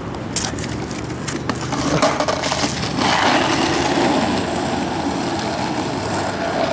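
Crackling clicks of a plastic bottle being drunk from, then, from about three seconds in, skateboard wheels rolling steadily over asphalt.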